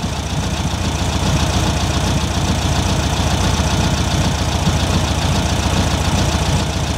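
Air-cooled flat-four engine of a 1970 VW Beetle idling steadily, warm, with its carburettor's choke fully open.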